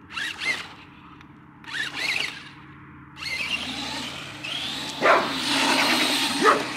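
A dog yips twice in the first couple of seconds. About three seconds in, a Traxxas Rustler 4x4 RC truck's electric motor whirs up as it drives off, getting louder toward the end.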